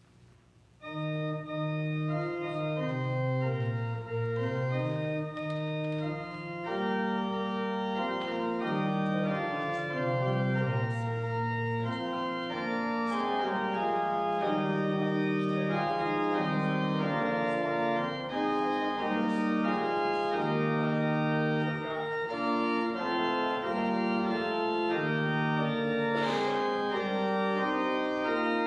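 Organ starts about a second in and plays slow, held chords over a moving bass line: a postlude at the close of a church service.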